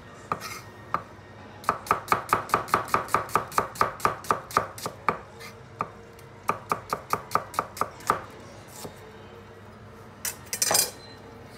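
Chef's knife slicing an onion on a wooden chopping board: quick runs of knife strikes, about five or six a second, with a short pause in the middle, then a brief louder clatter near the end.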